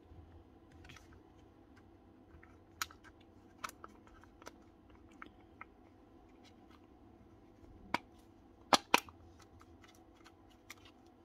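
Small clicks and light knocks of cordless drill parts, plastic housing and gearbox, being handled and fitted together during reassembly, with two louder knocks close together about nine seconds in.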